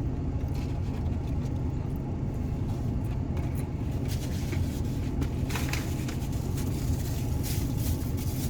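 Steady low rumble of an idling car engine, with scattered crinkling and clicks from about four seconds in.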